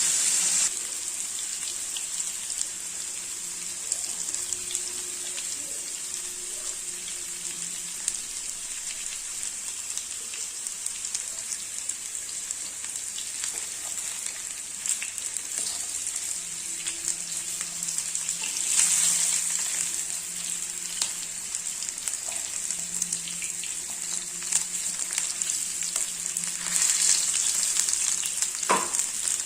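Food frying in hot oil with a steady sizzle, and scattered clicks and scrapes of a spoon stirring it. The sizzle swells louder twice, around the middle and again near the end.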